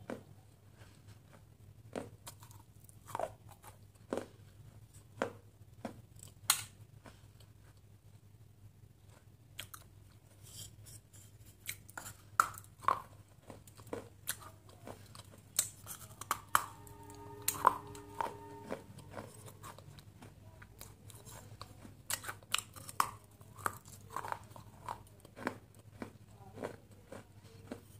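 Close-up biting and chewing of a water-soaked, softened piece: sharp crunches about every second, between them the sound of chewing, over a low steady hum. A little past the middle comes a short pitched hum lasting about two seconds.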